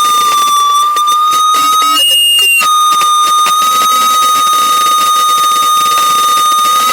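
Audio feedback from a microphone and loudspeaker: a loud, steady high-pitched howl. About two seconds in it jumps briefly to a higher pitch, then settles back on the first tone and holds.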